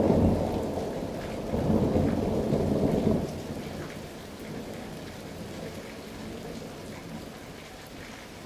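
Thunderstorm: thunder rumbling over steady rain. One roll fades away, a second roll swells about a second and a half in and dies off by about three seconds, leaving the rain hiss alone.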